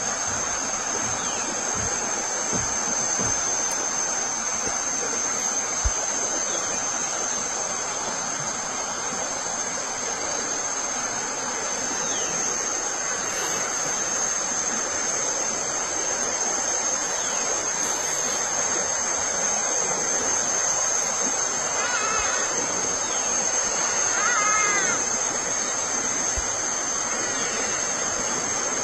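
Steady rushing of a forest stream or small waterfall, with a thin steady high whine above it and two short calls near the end.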